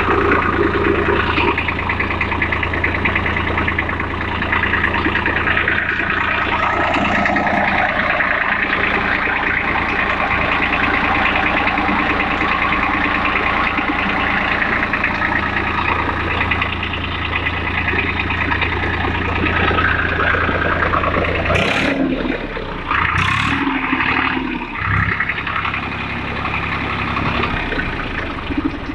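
Swaraj 855 tractor's three-cylinder diesel engine running steadily while driving a belt-driven single-cylinder air compressor mounted beside it. About three quarters of the way through come two short sharp noises, and the steady low engine hum changes after them.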